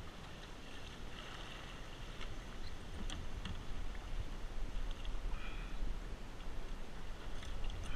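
Kayak paddle dipping and river water splashing and lapping against the plastic hull in shallow water near a sandy bank, over a low rumble. A couple of light knocks come about three seconds in.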